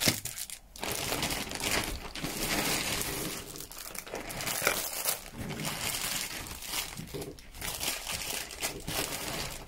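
Thin clear plastic packaging crinkling and rustling as wrapped items are handled and laid down, with a brief lull about half a second in.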